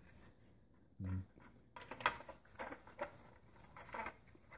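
Hard plastic clicking and knocking as the cab body shell of a Tamiya Heavy Dump RC truck is handled and pressed down onto its chassis, with a run of sharp clicks from about two seconds in. A brief low hum about a second in.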